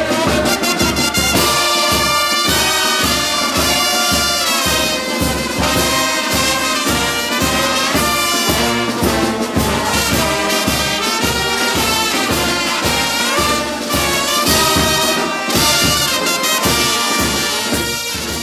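Carnival brass band with trumpets playing a lively tune over a steady bass-drum beat of about two strokes a second, starting to fade out at the very end.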